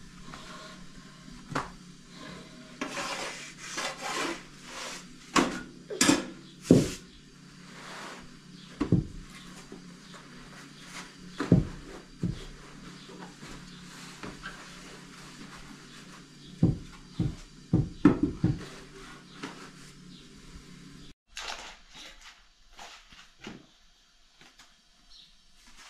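A large cloth rustling as it is folded and handled on the floor, with a dozen or so sharp knocks and thumps among the rustles, loudest about six and eighteen seconds in. A steady low hum sits underneath and cuts off about 21 seconds in, leaving only faint rustling of stacked flatbread.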